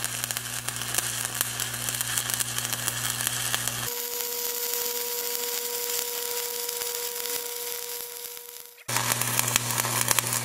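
Stick-welding arc crackling and spitting steadily as a 7018 electrode burns along a fill pass, over a low electrical hum. About four seconds in, the hum drops away and a steady whine sounds for about five seconds under the crackle, then the hum comes back.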